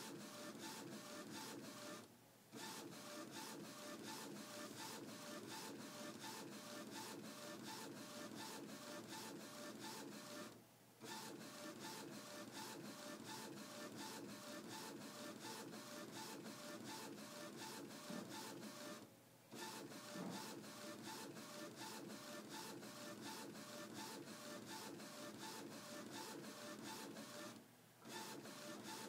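Epson Stylus S22 inkjet printer, converted for direct-to-garment printing, printing onto fabric: the print head carriage shuttling back and forth with a steady run of rapid clicks, broken by a short pause four times, about every eight and a half seconds.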